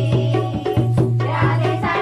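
Folk music: a hand drum beating a fast, steady rhythm of about five strokes a second, with singing.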